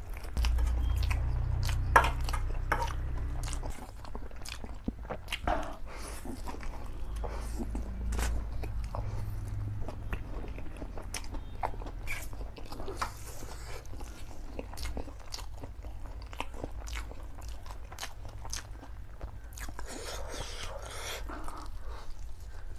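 Close-miked eating sounds of a man chewing and slurping Samyang spicy black bean noodles: wet chewing with many short smacking clicks throughout, and a low rumble in the first few seconds.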